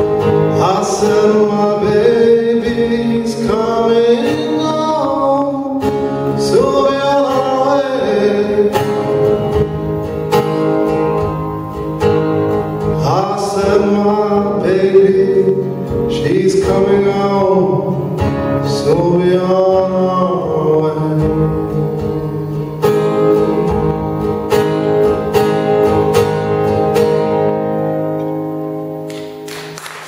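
Acoustic guitar strummed with a man singing a slow folk melody. The voice drops out about two-thirds of the way through and the guitar carries on alone, its last chord fading away near the end.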